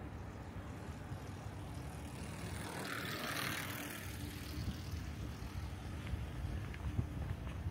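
A car passing on a street: its tyre and engine noise swells about three seconds in, then fades, over a low steady hum.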